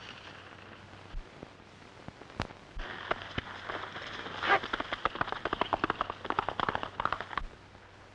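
Horse galloping off: a quick, irregular run of hoofbeats that starts about three seconds in, grows denser and louder, and stops near the end, after a couple of single sharp clicks.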